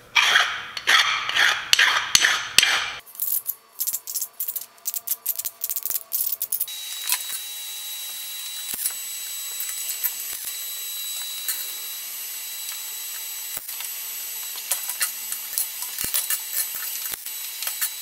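A hand file rasping in quick strokes along the edges of stacked aluminium plates for about three seconds. Then come scattered scrapes and clicks, and from about seven seconds in a steady hiss with a faint high whine and the odd click.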